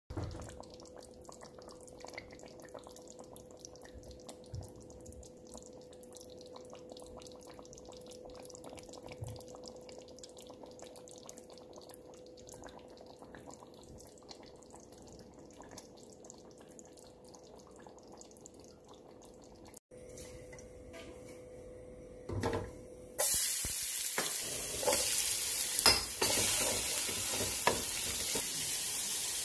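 A faint steady hum, then from a little over 23 seconds in a loud sizzling of sliced onions frying in hot oil in a metal pot. A wooden spatula stirs and scrapes the onions against the pot.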